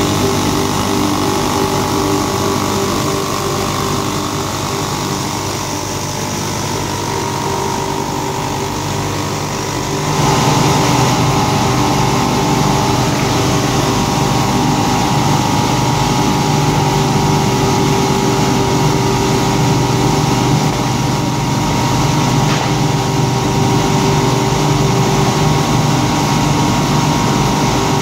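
Paper tube polishing machine running: its electric motors and polishing heads give a steady hum with several held tones over a broad hiss, stepping up louder about ten seconds in.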